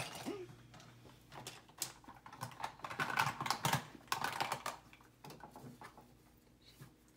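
Small makeup items (tubes, pencils, compacts) clicking and clattering against each other and the sides of a bin as hands rummage through it. The clatter is busiest in the first four or five seconds, then dwindles to a few scattered clicks.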